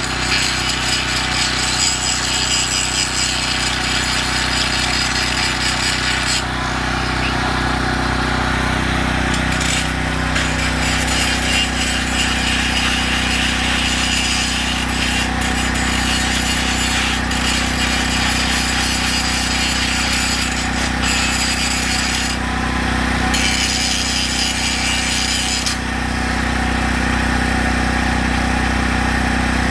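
Power tool working the steel of a shopping cart handle, running in stretches that stop and start, over a steady low machine hum.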